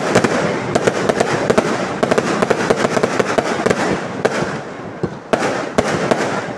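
Fireworks going off in a dense, rapid barrage of sharp bangs and continuous crackling, easing briefly a little after halfway and near the end.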